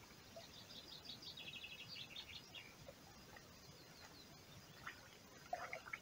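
Faint songbird singing over a quiet background: a run of quick, high repeated chirps and a short trill in the first half, with a brief louder sound near the end.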